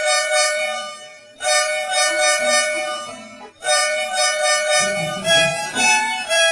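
Volvo bus horn, an edited sound-effect variation, sounding a held two-tone chord in long blasts of about two seconds each. It breaks off briefly about a second and a half and three and a half seconds in. After about five seconds it turns into shorter honks that shift in pitch.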